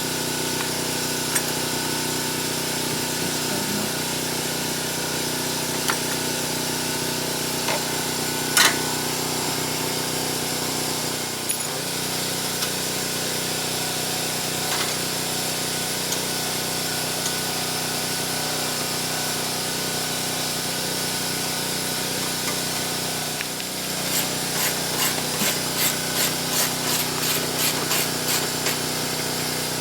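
A steady mechanical hum with several even tones runs throughout. A few sharp clicks fall in the first half, and a quick run of regular clicks, about two a second, starts near the end.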